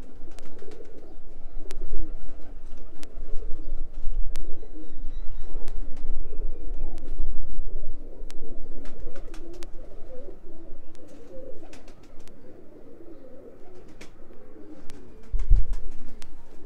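Domestic pigeons cooing, a continuous overlapping chorus, with scattered sharp clicks. A short low thump comes about fifteen seconds in.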